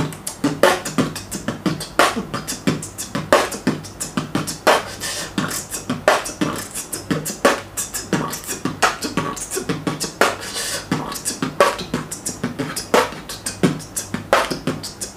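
A man beatboxing: a fast run of percussive mouth sounds.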